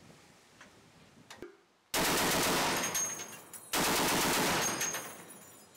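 Automatic gunfire in two long bursts of rapid shots. The first cuts in about two seconds in and the second about a second and a half later; each stays loud for about a second, then fades.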